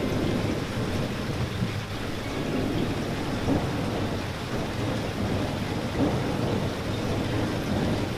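Steady rain falling on a surface, a dense, even patter heavy in the low end, with a couple of louder drop hits about midway.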